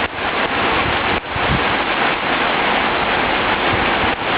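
Heavy rain pouring down, a loud, dense, steady hiss with a couple of brief dips.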